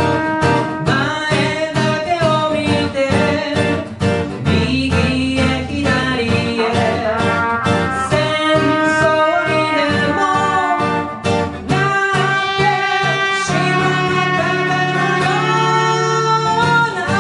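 Live band music: a song with guitar and a melody line over a steady beat, at a constant loud level.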